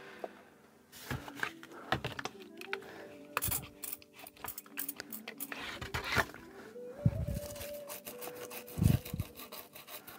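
Toothbrush scrubbing a soldered circuit board wet with isopropyl alcohol, in irregular scratchy strokes with a few sharper clicks, to loosen the flux residue.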